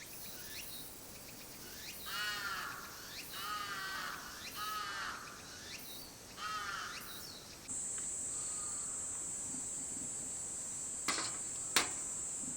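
Crow cawing several times, each caw an arched, harsh call. A steady high-pitched whine comes in about two-thirds of the way through, with two short clicks near the end.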